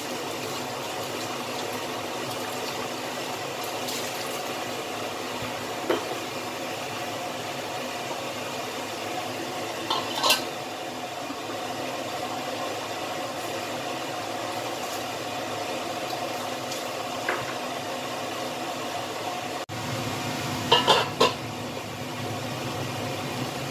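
Chicken wings and sauce boiling in a wok, a steady bubbling hiss, with a few sharp metallic clinks from the stainless steel wok lid being set on about ten seconds in and lifted off near the end.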